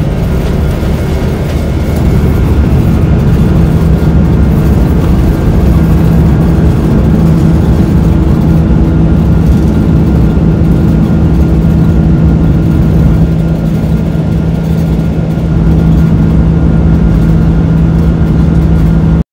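Jet airliner's engines at takeoff thrust, heard from inside the cabin: a loud, steady roar with a low drone and a steady hum through the takeoff and initial climb.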